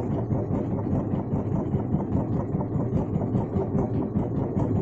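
Fishing boat's engine running steadily at idle, a dense low-pitched sound with an even pulse.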